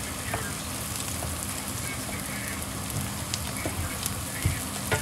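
Food sizzling in a frying pan: a steady hiss with scattered crackles and pops.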